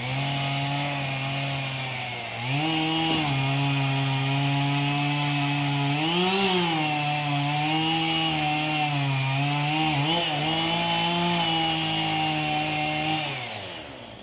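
Chainsaw held at full throttle in a felling cut, the engine pitch stepping up a little after a couple of seconds and dipping briefly twice, then winding down near the end.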